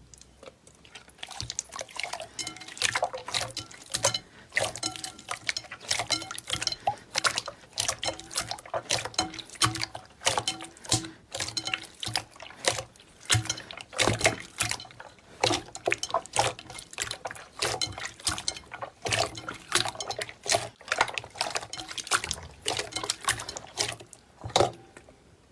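Slime being squished and poked by hand, giving a quick, irregular run of clicks and pops.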